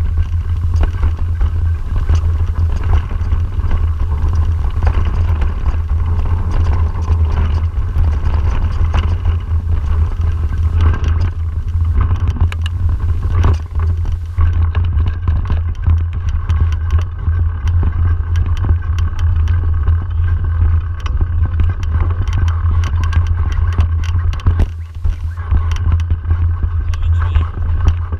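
Wind buffeting an action camera's microphone during a mountain bike ride on a dirt singletrack, a steady low rumble, with the bike rattling and clattering over bumps and tyres on dirt throughout.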